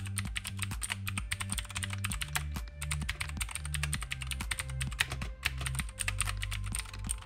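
Fast typing on a Drevo Calibur mechanical keyboard with clicky blue switches, a dense stream of sharp key clicks, over quiet background music with a bass line.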